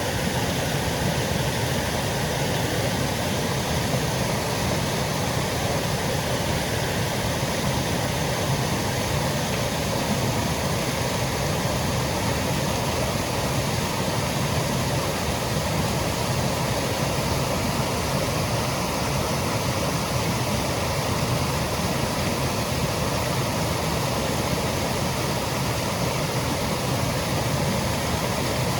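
Woodland waterfall cascading: a steady, even rush of falling water.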